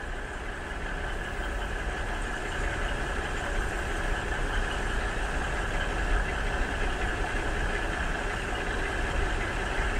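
A steady mechanical drone of farm machinery running, like a large diesel engine at idle, growing slightly louder over the first few seconds and then holding even.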